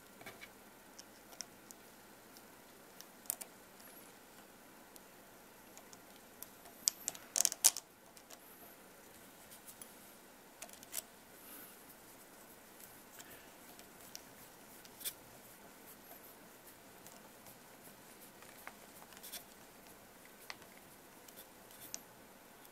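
Faint scattered clicks and taps of small plastic and metal parts as a shock absorber is refitted to an RC crawler's suspension arm and its bolt turned with a hex driver, with a short cluster of louder clicks about seven seconds in.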